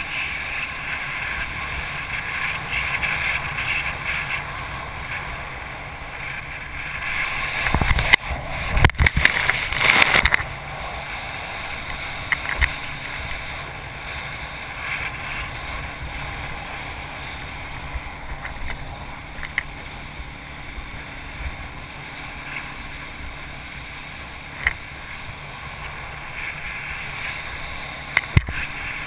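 Steady rush of wind and water against a wakeboarder's camera while being towed behind a boat. A louder, choppier burst of spray and buffeting comes about eight to ten seconds in, and a few short sharp knocks follow later.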